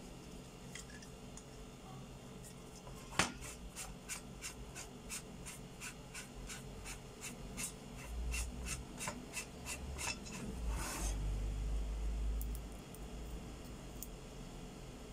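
Small folding camping gas stove being unscrewed by hand from its threaded gas canister: metal rubbing, one sharp click, then a run of light clicks about three a second, and a short hiss about eleven seconds in.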